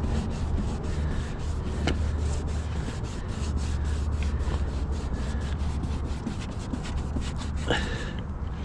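Paper towel soaked in rubbing alcohol scrubbing dirt out of a car's trunk seam channel, in a run of quick rubbing strokes, with wind rumbling on the microphone. A sharp click about two seconds in and a louder one near the end.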